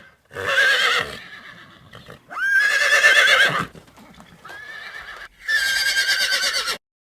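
A horse whinnying four times in a row, each call with a shaky, wavering pitch, the third one quieter. The last whinny cuts off abruptly.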